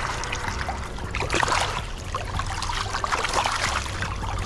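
High river water rushing close to the microphone, with irregular splashes throughout and a low rumble underneath.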